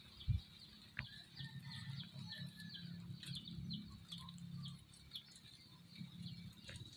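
Faint small birds chirping, short high chirps repeated a few times a second, over a low steady hum.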